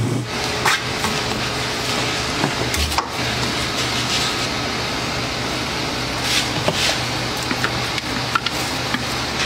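Batch ice cream freezer running with a steady mechanical hum and noise, with a few scattered scrapes and taps of a plastic spatula working soft ice cream against the steel barrel and pan.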